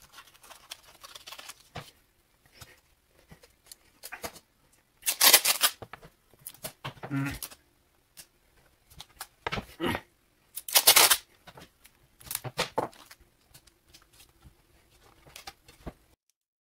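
Strips of surgical tape pulled off the roll and torn to fix a paper template down, with paper rustling in between. Several short ripping sounds, the loudest about five and eleven seconds in.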